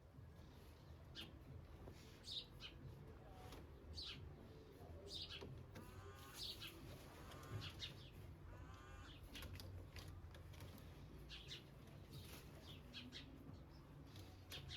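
Birds chirping faintly: scattered short, high chirps, with a few quick runs of repeated notes in the middle, over a low steady hum.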